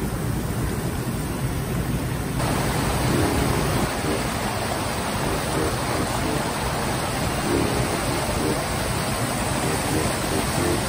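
Steady rushing of a mountain stream over rocks, an even hiss of water that grows a little brighter about two seconds in.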